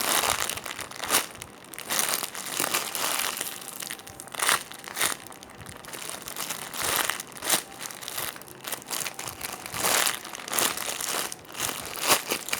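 Crinkling and rustling in irregular bursts as hands squeeze and handle a foam squishy toy close to the microphone.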